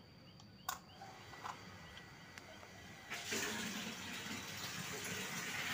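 A sharp click less than a second in; then, about three seconds in, an electric household water pump starts and runs with a steady rush of water, working again now that its faulty plug socket has been replaced.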